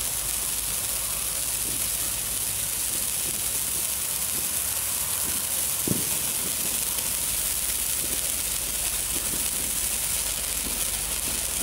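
Topgun TG7033 Neon Morning Glory handheld sparkler stick burning with a steady high hiss as it throws sparks, with one small pop about six seconds in.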